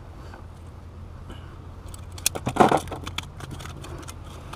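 Close handling noise: a quick run of crackling clicks with a short, louder rustle about halfway through, over a steady low rumble.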